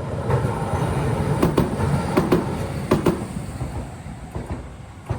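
Tokyu Setagaya Line train rolling across the level crossing with a low rumble, its wheels clacking over the rail joints in three quick pairs, then the noise falls away near the end.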